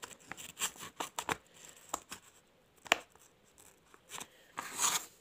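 Crinkling and clicking of an empty foil-and-plastic baby-food puree pouch and its plastic screw cap being handled by fingers, in scattered short snaps with a louder rustle near the end.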